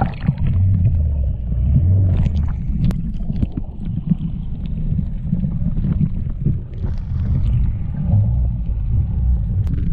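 Muffled, low rumble of moving water heard through a waterproof camera underwater, with a few faint clicks.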